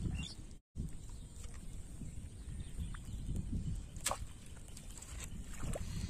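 Wading steps sloshing through shallow water in a flooded rice field, with wind rumbling on the microphone. The sound cuts out for a moment just under a second in, and a single sharp click comes about four seconds in.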